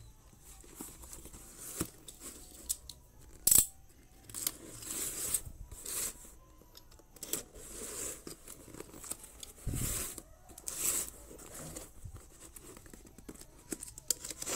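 Cardboard parcel being unwrapped by hand: plastic wrap and cardboard rustling and tearing in short, irregular bursts, with one sharp knock about three and a half seconds in.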